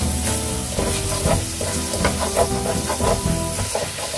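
Paella rice, vegetables and chicken sizzling in a hot pan after a splash of wine, stirred with a metal utensil that scrapes the pan's bottom now and then. Background music with held notes plays underneath.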